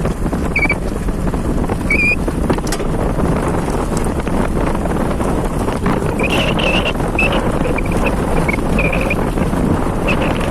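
Steady, loud wind rumble buffeting the microphone. Short high chirps come half a second in and at two seconds, then a run of them from about six to nine seconds in.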